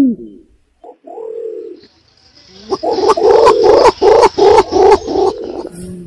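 Green imperial pigeon calls played as a lure sound. A deep arched coo ends at the start, a short low note comes about a second in, and then a quick run of throaty pulsing notes, about four a second, comes from about three to five and a half seconds in.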